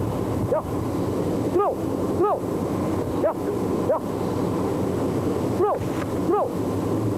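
Steady wind noise, crossed by a short pitched call that rises then falls, repeated every second or so, often in pairs.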